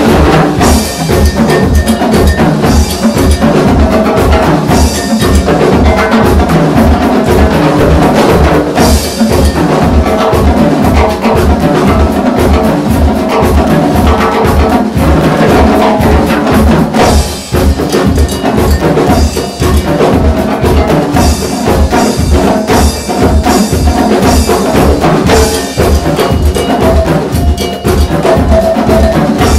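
Live band music driven by percussion: timbales, a cowbell and a jam block played with sticks over a drum kit, with a steady low beat.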